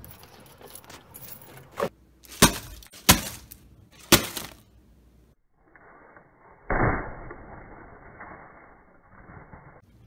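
A key working a brass doorknob lock: four sharp clicks over about two and a half seconds. Then a rustle of paper wrapping, loudest a couple of seconds later, as it is pulled back from a plastic food basket.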